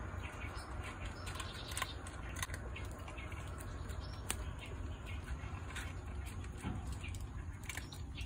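Steady outdoor background hum with scattered short clicks and brief high chirps throughout.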